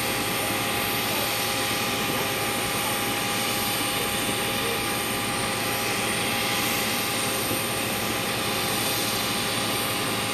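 Steady turbine noise from a parked jet airliner: an even rushing with several steady whining tones, unchanging throughout, as from its auxiliary power unit running at the stand.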